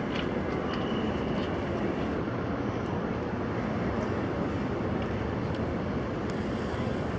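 Steady, reverberant din of a crowded cathedral interior: many visitors' distant voices and footsteps blur into one even wash with no distinct words.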